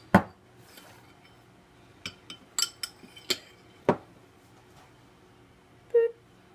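Metal teaspoon clinking against a glass bowl as melted crayon lipstick mixture is stirred and scooped out: a string of sharp separate clinks, the loudest just after the start, with a short tone near the end.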